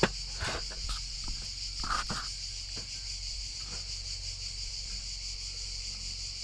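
Steady high chirring of insects, with a few soft knife cuts and handling noises as a red bell pepper is sliced with a cleaver on a wooden board, and a sharp click right at the start.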